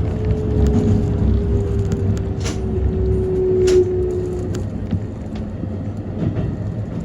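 Keikyu Main Line electric train running with a low rumble and a single whine that slides slowly down in pitch as the train slows, dying away about four and a half seconds in. Two brief sharp sounds come about a second apart in the middle.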